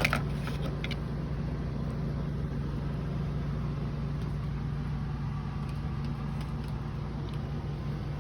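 Steady low machine hum with a constant low tone, like an engine or air-conditioning unit running, with a short click at the very start.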